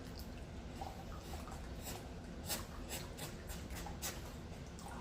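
Faint scratchy rubbing and light clicks from handling a small, wet vinyl toy figure.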